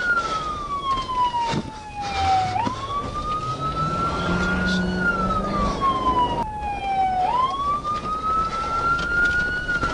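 Emergency vehicle siren wailing, its pitch sliding slowly down and back up in a repeating cycle of about five seconds.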